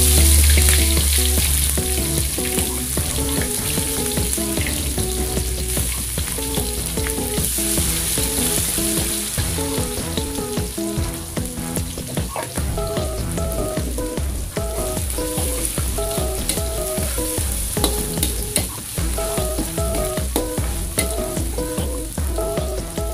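Shallots, garlic and green bird's-eye chillies frying in hot oil in an aluminium wok, a steady sizzle with a metal spatula clinking and stirring now and then. A low rumble sits under it for the first few seconds.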